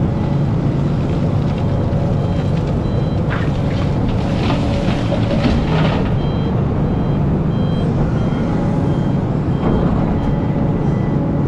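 Hidromek excavator's diesel engine running steadily under load while a backup alarm beeps about twice a second. Between about three and six seconds in, a bucketload of earth and rocks pours with a rough rushing rattle into a steel dump-truck bed.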